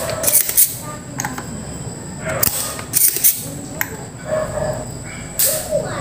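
Spring-loaded desoldering pump (solder sucker) being cocked and fired again and again while a soldering iron melts the joints, desoldering a component from a circuit board: a series of sharp snaps and clicks, several within a few seconds.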